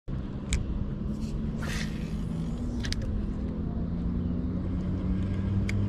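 An engine running steadily with a low hum, with three sharp clicks and a brief hiss over it.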